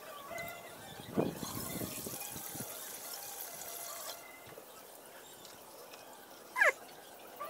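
Water splashing and trickling as a fine-mesh hand net is dipped into a drain pit and lifted out dripping. Near the end a short, sharp chirp falls in pitch.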